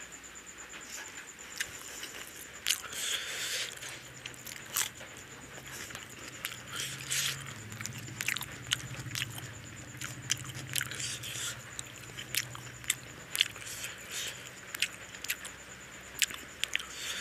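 Close-up eating sounds of a person chewing rice and curry eaten by hand: a run of sharp, wet mouth smacks and clicks, irregular and frequent throughout.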